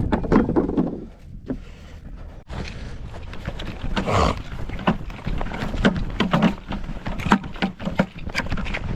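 Wind buffeting the microphone, with irregular knocks and clatter throughout.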